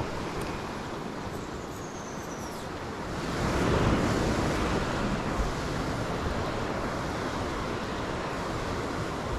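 Ocean surf washing and breaking against coastal rocks, with a louder wave surge about three and a half seconds in.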